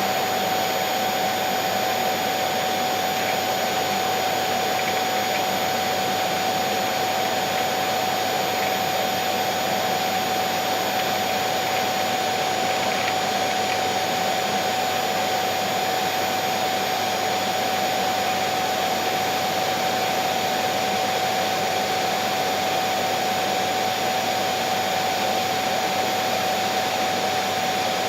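Vacuum cleaner running steadily: an even rush of air with a constant motor whine, unchanging.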